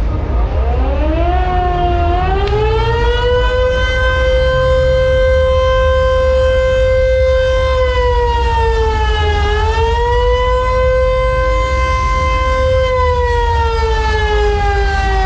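A siren winds up in pitch over the first few seconds, holds a steady wail, dips briefly and climbs back about two-thirds of the way in, then slowly winds down near the end, over a steady low rumble.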